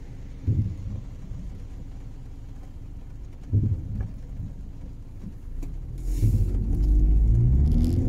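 Car idling in the rain with a steady low rumble, broken twice by a short groan from the rear wiper, which is making a terrible noise: once about half a second in and again about three seconds later. Near the end the engine gets louder with a rising note, as when the car pulls away.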